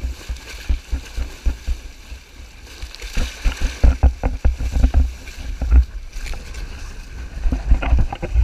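Wind buffeting the microphone and water slapping and splashing against the hulls of a Hobie catamaran under sail, in uneven gusty thumps with spattering splashes.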